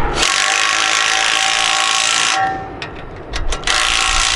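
A power driver with a 9/16 socket runs in two bursts of about two seconds each, driving a bolt into the front hole of a steel bracket on a 2x4. Between the bursts there is a short pause with a few clicks.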